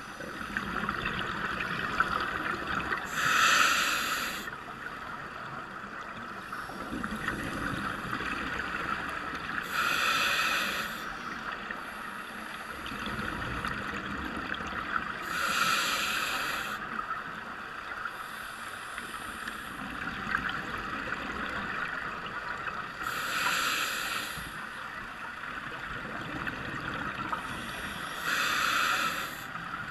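Scuba diver breathing through a regulator underwater: exhaled bubbles rush out in five bursts, about one every six seconds, with a steady underwater hiss between them.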